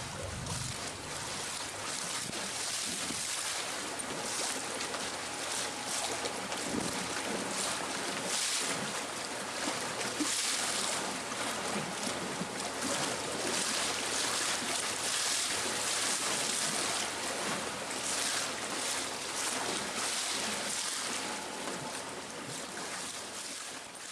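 Water lapping and splashing against the hull of a small electric boat, with wind buffeting the microphone; no motor is heard over it. The sound fades out near the end.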